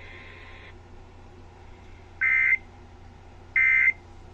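Emergency Alert System end-of-message digital data bursts. Two short, identical two-tone electronic squawks come about a second and a half apart, marking the end of the broadcast weather alert, over a steady low hum.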